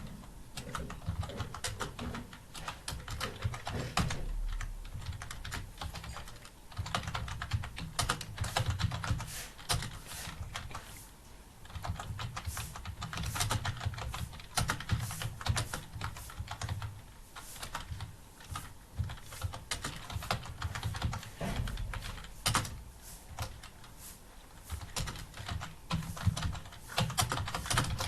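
Computer keyboard typing: fast, continuous keystrokes in an uneven rhythm, as in a timed typing test.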